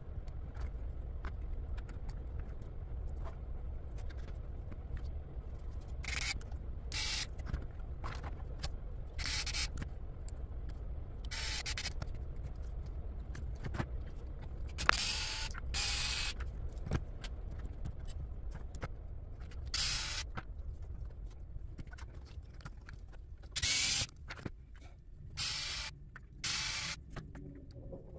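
Small plastic RC car suspension and chassis parts being handled and fitted together by hand: about ten short scraping, rubbing sounds with scattered small clicks over a low steady hum.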